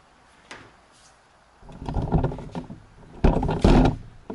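Plastic golf cart seat being lifted and flipped open: two loud bursts of scraping and knocking, the second ending in a low thump.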